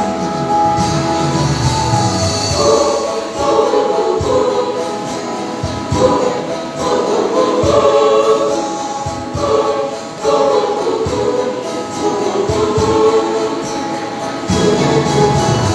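School choir singing in several parts, with short low thumps recurring beneath the voices.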